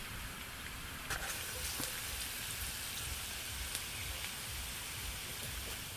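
Onions frying in oil in a steel pan on a portable butane stove: a steady sizzling hiss, with a few light clicks.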